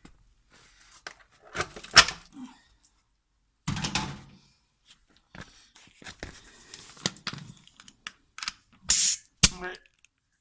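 Handling noise from air tools in a garage: scattered clicks, knocks and thunks, with a short burst of noise near the end followed by a sharp click.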